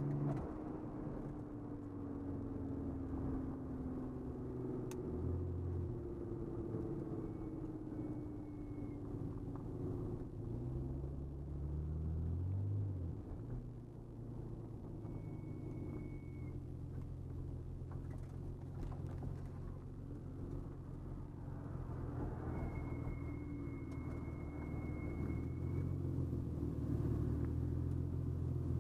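Nissan 300ZX Z32 twin-turbo V6 heard from inside the cabin under road noise, the engine note falling and rising with throttle and gear changes on a winding road. A faint high whistle comes and goes three times.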